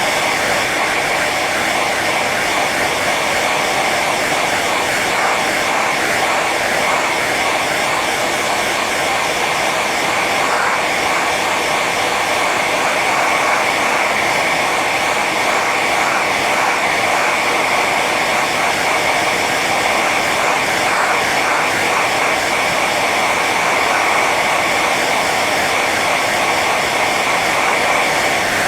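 Hair dryer running steadily on its high setting: an even rush of blown air with a constant high whine from the fan motor.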